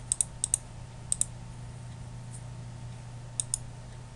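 Computer mouse button clicking in short runs: four quick clicks at the start, a pair about a second in and another pair near the end, over a steady low hum.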